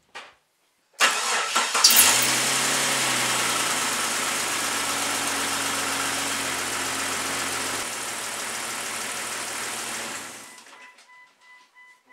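Jeep Cherokee XJ's 4.0-litre inline-six starting up and then running steadily at idle, fading out near the end.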